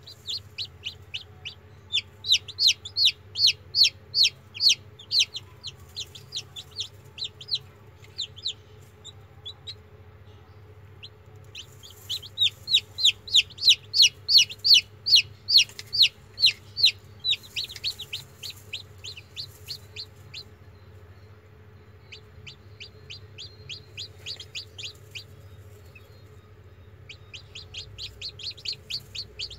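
Newly hatched chicken chicks peeping: fast runs of short, high peeps, about four a second, in bouts broken by pauses of a second or two. A faint low hum sits underneath.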